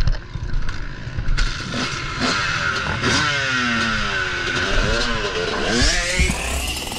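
Dirt bike engine running and revving up as the bike pulls away, its pitch climbing near the end. Partway through, a second motorcycle's engine note falls and then rises again, over a rumble of wind on the helmet microphone.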